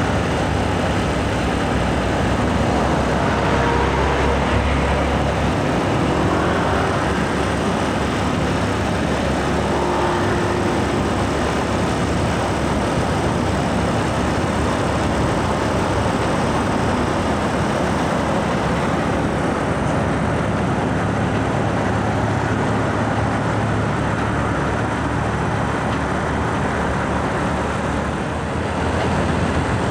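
Steady road traffic noise, mostly the diesel engines and tyres of heavy trucks, among them a Mercedes-Benz fuel tanker tractor, passing close by.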